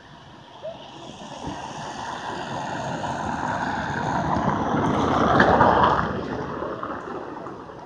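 A vehicle driving past: tyre and engine noise that swells over about five seconds and then fades away.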